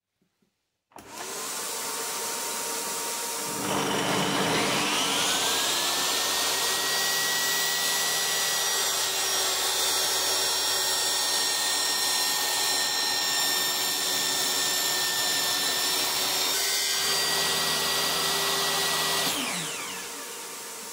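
About a second in, a steady machine noise starts. A couple of seconds later a DeWalt table saw's motor spins up with a rising whine, runs steadily through a tenon cut in clamped wood, and is switched off near the end, winding down while the other machine keeps running.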